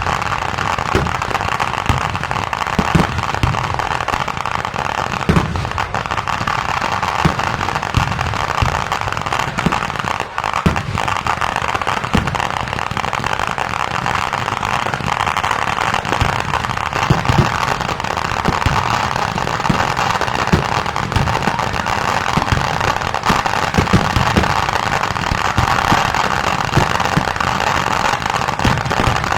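A dense, unbroken barrage of firework explosions, many booms a second overlapping one another over a constant crackling din.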